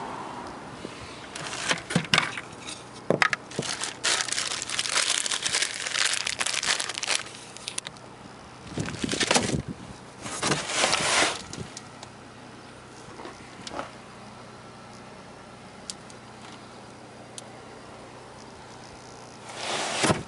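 Crinkling and rustling handling noise with sharp clicks and knocks, in irregular bursts for the first dozen seconds, then mostly quiet, with one more rustle near the end.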